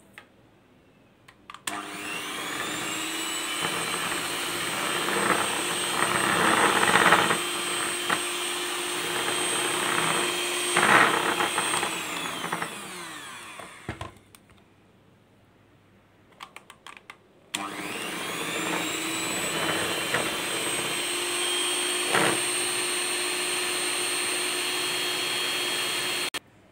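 Electric hand mixer beating flour into cake batter. Its motor whines up to speed, runs for about ten seconds with a few knocks and then winds down. After a pause of a few seconds it starts again and runs until it cuts off near the end.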